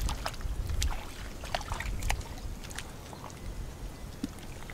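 Hands scooping and feeling through shallow muddy water, making small irregular splashes and squelches, most of them in the first half, over a low rumble.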